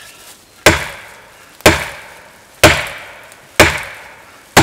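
Fiskars 28-inch chopping axe swung backwards into a hardwood tree trunk in deliberate overstrikes on its composite handle. Five hard strikes about a second apart, each dying away quickly.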